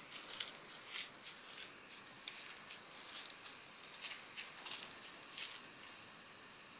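Faint, irregular crinkly taps and rustles with almost no low rumble, dying away about six seconds in.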